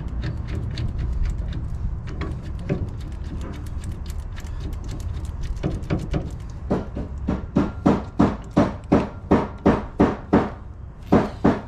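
Tools knocking on metal during work on a car's front hub and brake assembly: scattered light clicks at first, then a steady run of sharp knocks at about three a second, with two more near the end, over a steady low rumble.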